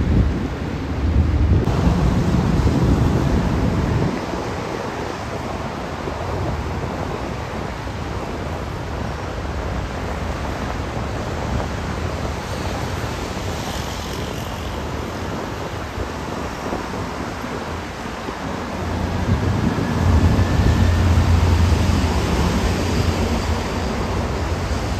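Wind buffeting the microphone, with heavy low gusts near the start and again toward the end. Underneath is the steady distant rush of a taxiing Boeing 787-8 airliner's jet engines.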